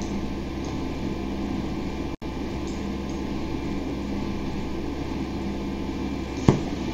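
Steady room hum and hiss, like a fan or air conditioner running, with one sharp click near the end.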